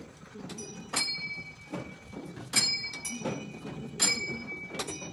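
Small metal bell on a large Buddhist prayer wheel dinging as the wheel turns, struck by the wheel's arm: bright, ringing strikes, the strongest about every second and a half with fainter dings between, over the low rumble of the turning drum.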